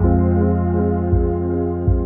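Background ambient music with sustained chords over a low bass, coming in abruptly.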